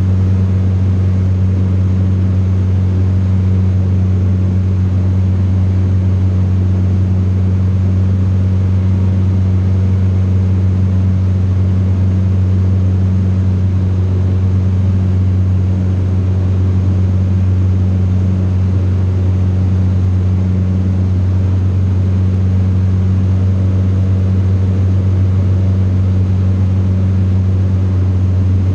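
Steady drone of a light single-engine aircraft's engine and propeller in level cruise, heard inside the cockpit: a constant low hum with a second, higher hum above it and a wash of air noise.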